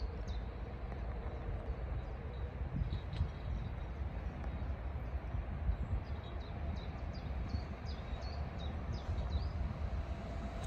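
Small birds chirping again and again over a steady low rumble, while a distant N8C light-rail car approaches along the track with a faint steady hum that comes in during the second half.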